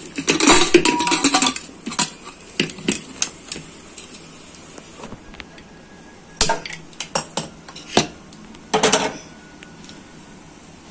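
Aluminium pressure cooker's lid being fitted and closed, metal scraping and clanking for about a second and a half. Then a few sharp metallic clicks and knocks, a quick run of clicks from a hand-held gas spark lighter at the stove burner, and a short burst of noise near the end as the cooker goes onto the lit burner.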